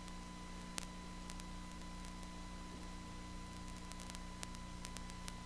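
A pause in speech filled with a steady electrical hum and hiss from the sound system or recording chain, with a few faint scattered clicks.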